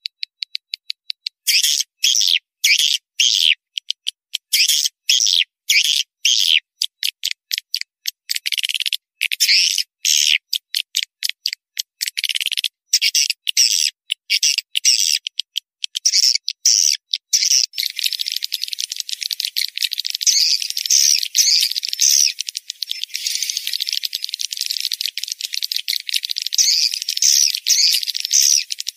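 Swiftlet lure-call recording (suara panggil walet): high-pitched chirping and twittering of swiftlets, a track played to draw the birds into a swiftlet house. It starts as short chirps in quick bursts and about two-thirds of the way in turns into dense, unbroken twittering.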